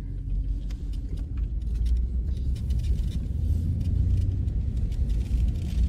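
Low, steady rumble of a vehicle driving slowly, with engine and tyre noise heard from inside the cabin and scattered light ticks.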